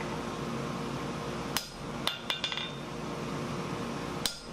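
Hammer striking a round punch held on red-hot 1/8-inch steel on an anvil, punching a round hole: one ringing blow about one and a half seconds in, three quick lighter strikes half a second later, and another ringing blow near the end. A steady hum runs underneath.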